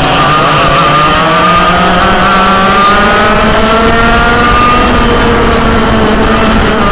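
Racing dirt kart's engine running hard at high revs, its pitch climbing slowly along the straight, easing a little about five seconds in, then holding steady.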